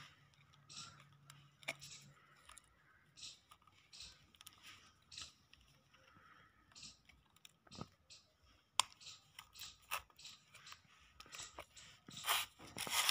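Faint handling noises as fingers work a new rubber seal into a steel hydraulic jack sleeve: scattered clicks, crinkles and light scrapes, with a sharper click about nine seconds in and a quick run of them near the end.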